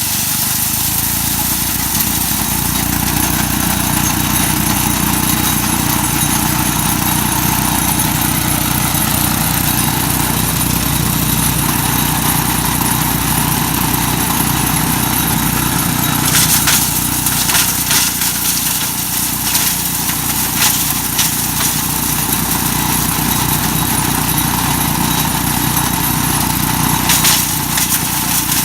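Mighty Mac wood chipper running steadily at speed, with two spells of sharp cracking and rattling, about two-thirds of the way through and again near the end, as walnuts are fed in and ground up.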